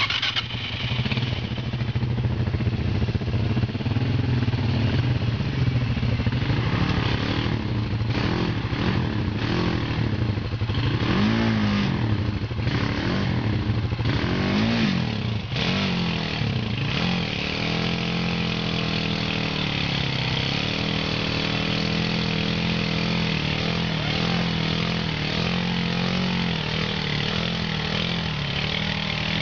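ATV engine revving hard again and again, its pitch rising and falling, then running at a steadier speed for the second half.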